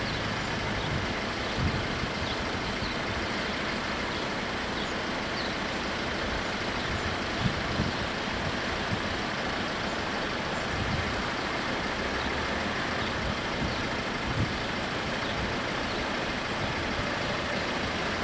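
Steady noise of road vehicles idling, with wind buffeting the microphone in uneven low gusts.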